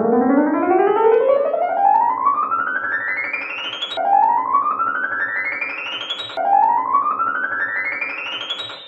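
Electronic keyboard tone climbing in quick small note steps, in three rising runs: one long run, then two shorter ones, each starting low again. Each run ends suddenly.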